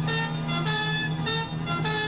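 Music: a melody of notes lasting a fraction of a second each over a steady held low note.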